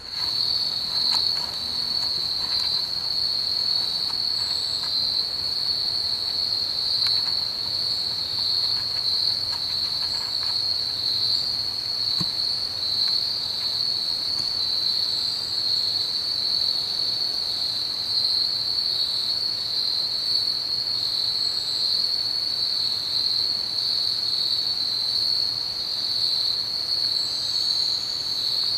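Steady, high-pitched chorus of insects in the woods, an unbroken shrill drone, with a few faint clicks in the first seconds.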